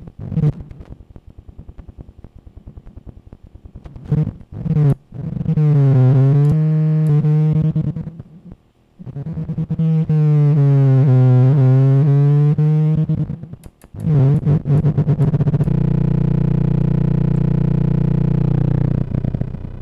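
Optical feedback tone from a Lite2Sound BC photodiode amplifier picking up the light of a Tektronix 2225 oscilloscope's CRT trace: a buzzing tone that comes in several stretches, its pitch sweeping down and back up as the scope's knobs are turned. It settles into a steady buzz for the last few seconds.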